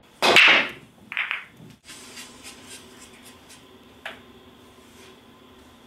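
Pool break shot: the cue ball crashes into the racked balls with a loud crack and clatter. A second smaller crash follows about a second later, then scattered light clicks as the balls knock into each other and the rails.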